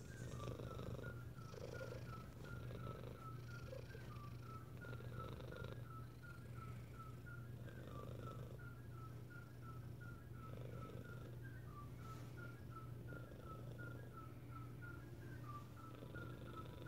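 Domestic cat purring softly and steadily close to the microphone, the purr swelling and easing with its breaths.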